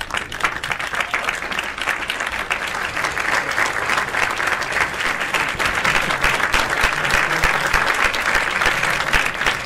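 Crowd applauding, many hands clapping in a dense, continuous clatter that grows a little louder over the first few seconds and then holds steady.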